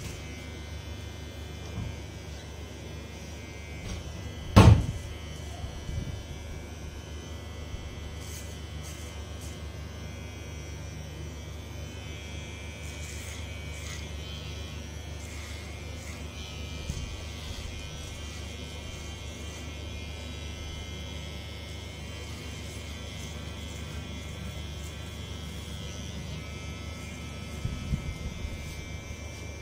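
Cordless electric hair clipper buzzing steadily as it cuts short hair at the nape. A single sharp knock about five seconds in, and a few light clicks near the end.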